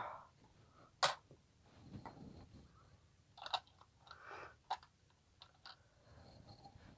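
Plastic LEGO pieces clicking and knocking as a minifigure is handled and fitted onto a brick build: a handful of sharp clicks, the loudest about a second in, with soft rustling between them.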